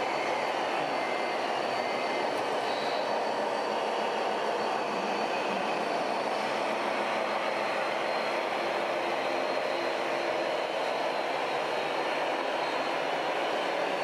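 Radio-controlled model truck running, a steady even mechanical noise with a faint high whine throughout.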